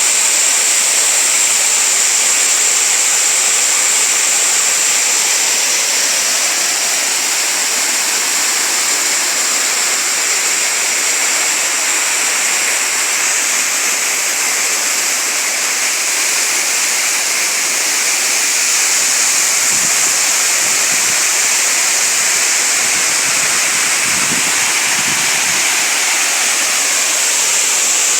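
Waterfall: water falling and rushing steadily, an even, constant splashing hiss.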